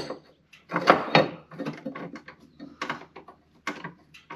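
Irregular light knocks and clicks of a wiper motor delete plate and its bolts being handled and fitted, with a small cluster about a second in and single louder knocks later.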